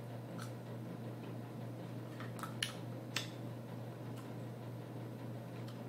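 Frozen grapes being eaten: four or five faint, sharp clicks as the grapes are handled and bitten, over a steady low hum.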